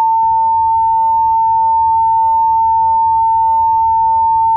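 Siemens voice evacuation fire alarm sounding its steady, high alert tone through Faraday ceiling speakers. This single unbroken tone is the alert part of the evacuation cycle.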